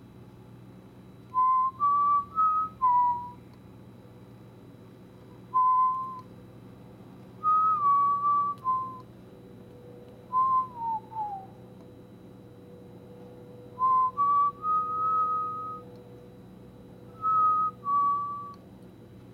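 A person whistling a slow tune: about six short phrases of a few held notes each, separated by pauses, over a faint steady hum.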